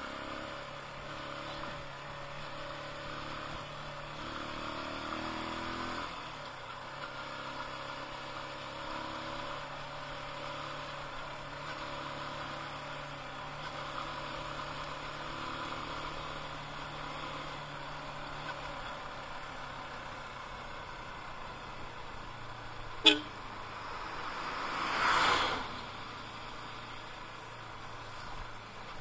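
Small motorcycle engine running steadily while riding, with road noise; the engine note changes about six seconds in. Near the end there is a sharp click, then a brief louder swell of noise lasting about a second.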